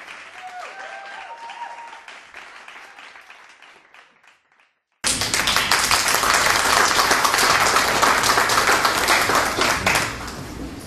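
The tail of a music jingle fading out, a moment of silence, then an audience applauding, starting suddenly about halfway through and easing off near the end.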